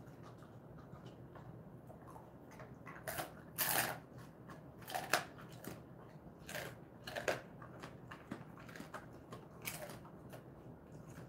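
Jindo-mix dog crunching and chewing a dry treat: a few irregular crunches, the loudest about four seconds in.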